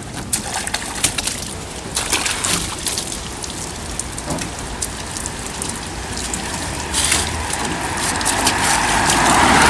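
Car being washed by hand: a wet cloth rubs on the bodywork and water splashes and drips into a bucket and onto the tarmac, with many short crackles. A hiss grows louder over the last few seconds and cuts off suddenly.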